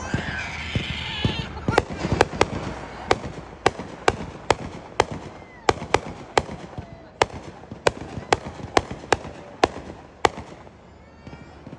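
Fireworks popping in a long, irregular string of sharp bangs, about two a second, that stops a little before the end.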